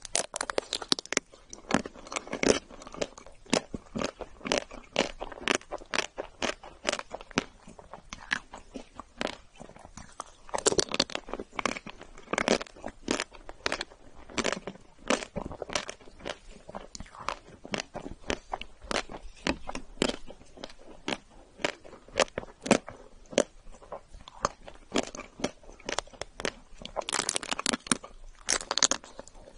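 Close-miked eating: biting and chewing a chocolate-coated bar. The hard chocolate shell cracks with many sharp crunches and crackles, in clusters between quieter stretches of chewing.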